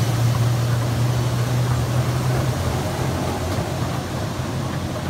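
Steady running noise of an amusement-park train heard from its open car: a low hum under a rushing hiss from a waterfall beside the track. The hum eases off about halfway through.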